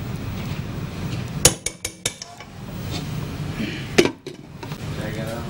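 Metal tongs clinking against a ceramic serving platter as noodles are arranged on it. There is a sharp clink about one and a half seconds in, a quick run of lighter taps just after, and a louder clack about four seconds in, all over a low steady rumble.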